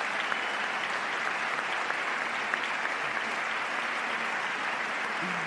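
A large crowd of lawmakers applauding steadily in the House chamber, a dense patter of many hands clapping.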